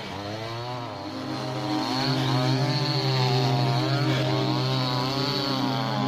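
Two-stroke chainsaw running by a fallen tree trunk, its engine speed wavering up and down. It gets louder about two seconds in.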